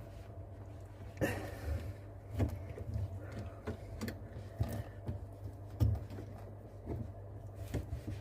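A pipe cutter being pushed and worked onto a 15 mm copper pipe: irregular clicks and knocks of metal on metal, with a short scrape about a second in, over a steady low hum.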